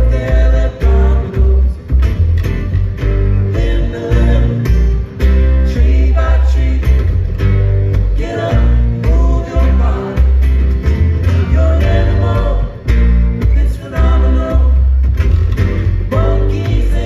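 Live acoustic string trio playing through a PA: two acoustic guitars picked and strummed over plucked upright double bass, with deep bass notes that change about once a second.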